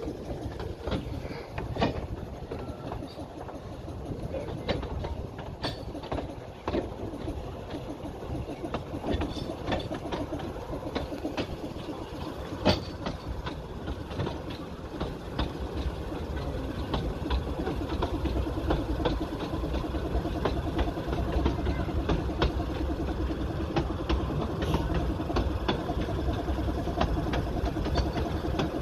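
Narrow-gauge steam train running along the track, its wheels clicking over the rail joints above a steady rumble that grows louder through the second half.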